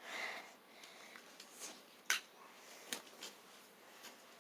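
A few light clicks from die-cast toy cars being handled on a plastic track, with one sharper click about two seconds in.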